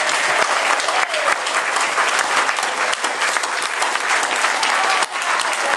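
A church congregation applauding: many hands clapping steadily.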